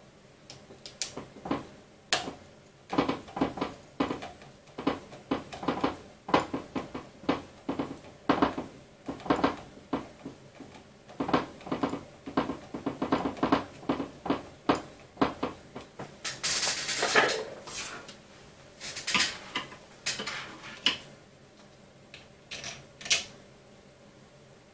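Small hard parts and tools clicking and clattering irregularly as they are handled during 3D printer assembly, with a longer scraping rustle about two-thirds of the way through.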